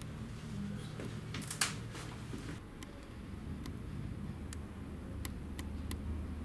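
Steady low room hum, with a few sharp clicks about one and a half seconds in, then light, uneven ticks roughly twice a second through the rest.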